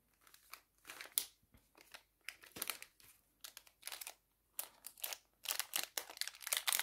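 Jewelry packaging crinkling and rustling as it is handled and opened, in scattered crackles that come thicker and louder near the end.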